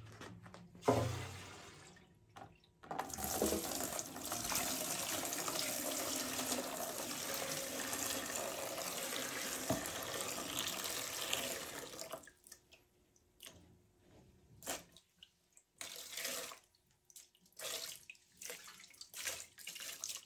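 Old fuel being poured out of a motorcycle fuel tank in a steady stream for about nine seconds, then dribbling out in short splashes and drips. There is a knock about a second in.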